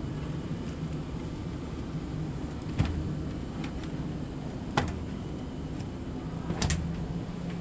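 Steady low drone of an idling truck engine, with three sharp clicks from the fire truck's aluminium roller-shutter compartment and its latch being handled: one about three seconds in, one near five seconds, and a double click near the end.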